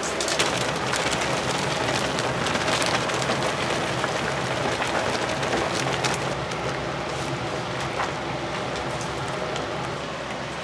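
Food sizzling on the stove: a steady hiss thick with small crackles, dropping a little near the end.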